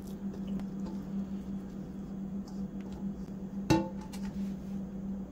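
Raw ground-meat loaf mixture being scooped from a steel bowl and pressed into a metal loaf pan by a gloved hand: soft squishing and small taps, with one sharp metallic clink a little past halfway through, over a steady low hum.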